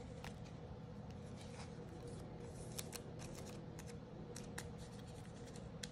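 Faint scraping and small plastic clicks, scattered irregularly throughout: a baseball card being handled and slid into a clear plastic card holder.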